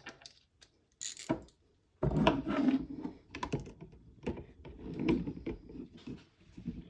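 Assembly handling noises: irregular small clicks and knocks of a wrench, screw and plastic chassis parts being worked by hand, as a screw is fitted into its hole.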